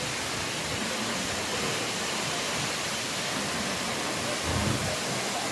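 Wli waterfall pouring down with a steady, even rush of falling water, and a brief low thump about four and a half seconds in.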